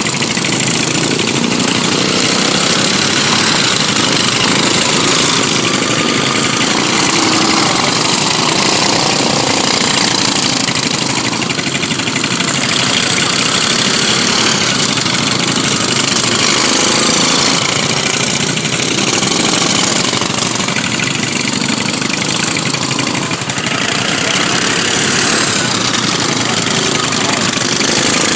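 Single-cylinder racing lawn mower engines running loud and steady, their pitch rising and falling a little as they rev.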